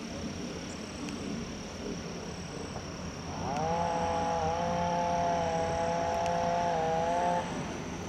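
A chainsaw revving up about three and a half seconds in, holding a steady high pitch at full throttle for about four seconds, then dropping back off near the end, over a steady background hiss.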